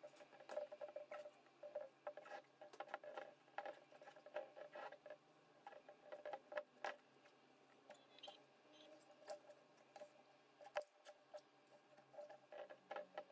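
Faint, irregular clicks and scratches of wooden skewers being wedged into the mouths of glass jars packed with peppers in brine, wood against glass and pepper stems.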